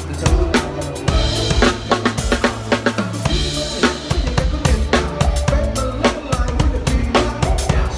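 Drum kit played to a steady beat along with a pop song's backing track, with a bass line under the drums.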